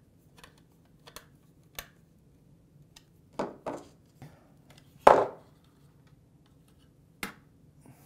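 Small clicks and taps of a screwdriver and screws working on an SSD mounting bracket, with a few louder sharp knocks, the loudest about five seconds in.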